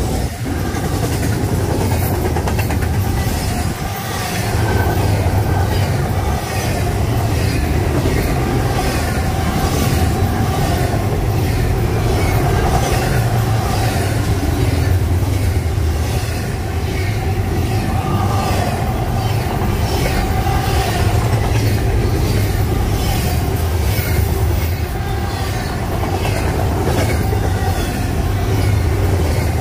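Fast intermodal freight train of double-stack container well cars and trailer flatcars passing close by: steel wheels running on the rails with a steady heavy noise, a faint ringing, and regular clicks as wheels cross rail joints.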